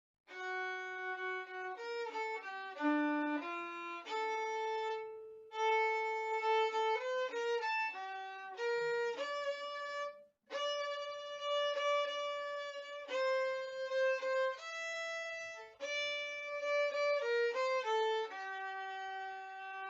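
A solo melodic instrument playing the hymn tune note by note as an introduction, with a short break about ten seconds in and a long held note near the end.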